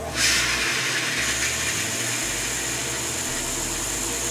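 Water jetting from a hose spray nozzle with a steady hiss that jumps up just after the start, over the steady hum of a Harbor Freight shallow well pump running to keep up pressure while the water is drawn.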